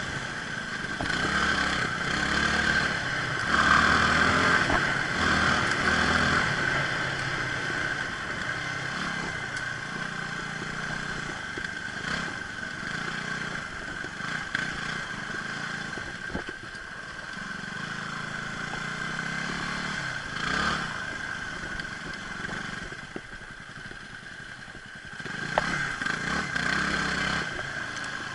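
Motorcycle engine running under way, its note rising and falling with the throttle: louder in the first few seconds, easing off about three-quarters of the way through and picking up again near the end.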